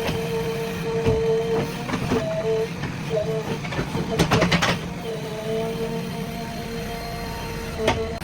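JCB 3DX backhoe loader running under work, a steady diesel rumble with a high whine that comes and goes, and a few sharp clanks, the loudest cluster about four seconds in.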